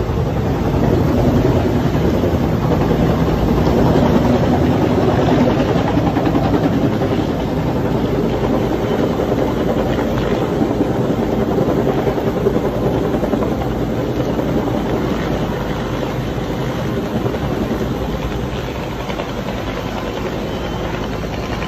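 Firefighting helicopter hovering low to draw water from a swimming pool, its rotor beating fast and loud and steady throughout.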